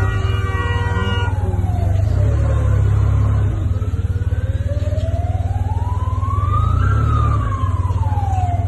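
Emergency vehicle siren in a slow wail, falling, then rising and falling again, over a heavy low rumble.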